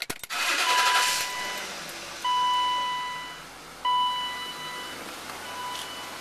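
A few clicks, then four steady electronic beeps from the BMW E34's dashboard warning chime, the last one shorter, over a steady background hiss.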